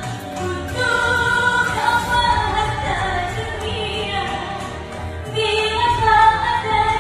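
A woman singing a song through a karaoke microphone over a backing track, holding and bending long notes.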